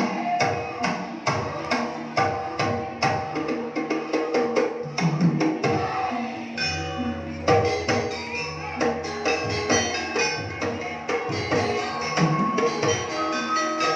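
Dance accompaniment music: pitched percussion over a steady beat of sharp strikes.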